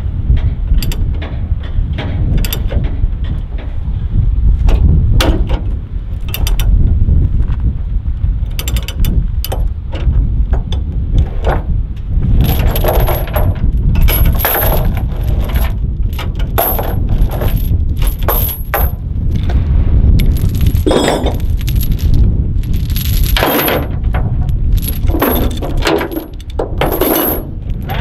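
Heavy steel tie-down chain clinking and clanking against steel as it is handled and hooked onto a bulldozer, with many short sharp metallic strikes that come more often in the second half, over a steady low rumble.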